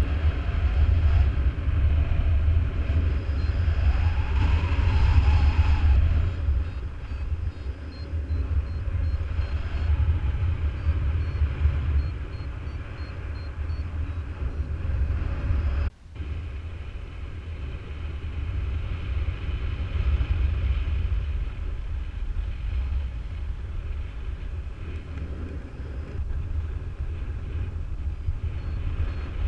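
Wind buffeting the camera microphone as a steady low rumble in a strong, steady wind. It dips out for an instant about halfway through.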